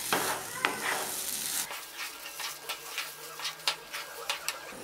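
Wooden spatula stirring thick semolina halwa in a non-stick wok: a soft sizzle for the first second and a half or so, then a run of short scrapes and taps of the spatula against the pan.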